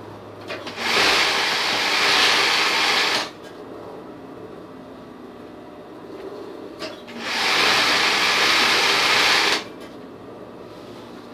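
Singer industrial sewing machine running at speed in two bursts of about two and a half seconds each, stitching feathers.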